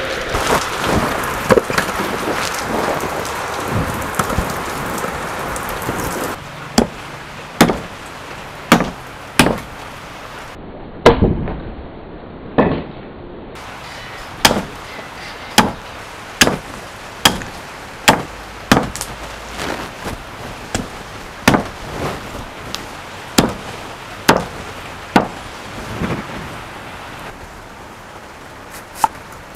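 Water sloshing and splashing in an iron wok as a cow's foot is scrubbed under a running hose. About six seconds in this gives way to a cleaver chopping on a thick wooden chopping block: sharp, steady strokes a little under a second apart.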